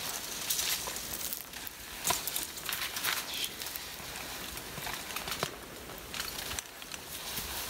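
Irregular rustling and crunching with scattered short clicks, with no steady rhythm.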